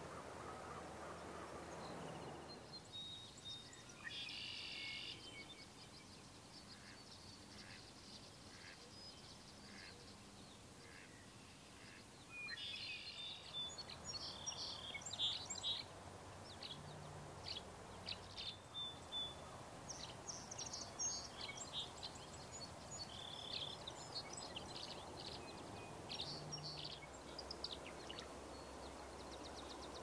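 Small wild birds calling: many short, high chirps, busier in the second half, with a couple of longer, fuller calls. Faint outdoor background hiss underneath.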